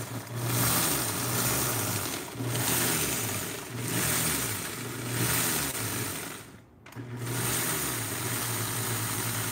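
NutriBullet blender motor grinding dry bulgur wheat on a low setting, pulsed in about four bursts of roughly a second each, spinning up and winding down with each, then after a brief stop running steadily.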